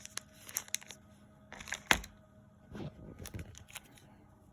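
Foil booster-pack wrappers crinkling as sealed Pokémon packs are handled and set down on a table, a few short rustles with one sharper tap about two seconds in.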